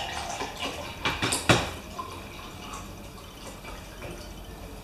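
Iced tea poured from a carton into a glass, the liquid splashing and trickling. A few sharp knocks about a second in.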